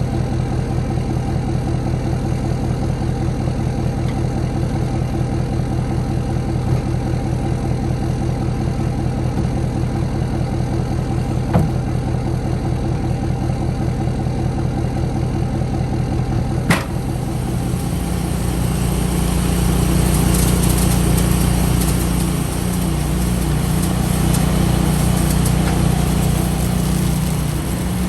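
An engine running steadily with an even pulse. About two-thirds of the way through there is a sharp click, and it settles into a heavier, louder running with added hiss.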